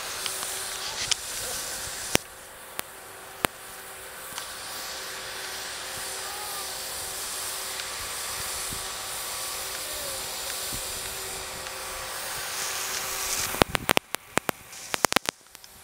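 Snowmaking cannons running: a steady hiss of spraying snow with a steady hum under it. Near the end a quick cluster of sharp ticks and knocks breaks through the hiss.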